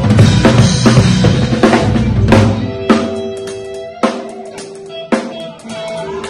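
Acoustic drum kit played hard with bass drum, snare and cymbals for about three seconds. Then it drops to single accented hits about once a second, over sustained chords from the accompanying music.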